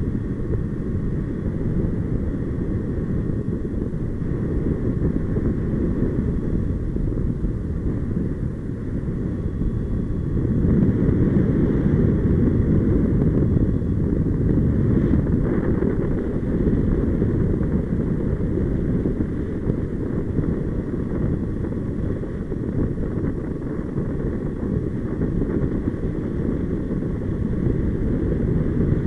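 Airflow buffeting an action camera's microphone during paraglider flight: a steady low rumble of wind, louder for several seconds starting about a third of the way in.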